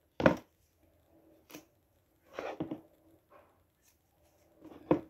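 Leather dress shoes handled and set down on a table: a sharp knock just after the start, a few light clicks and a brief rustle, and another knock near the end.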